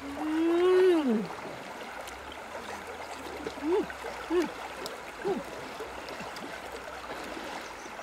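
Steady rush of flowing river water, with a person's wordless voice over it: one long vocal sound at the start that rises and then falls in pitch, then three short ones around the middle.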